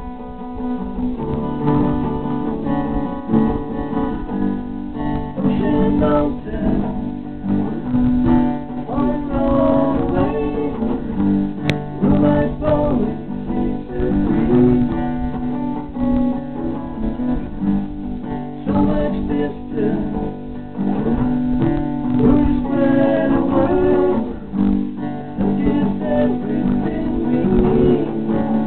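Steel-string Olympia acoustic guitar strummed in steady chords, with a man singing along.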